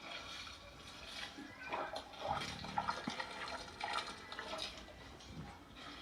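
A sleeping pet snoring: a run of irregular, breathy snores.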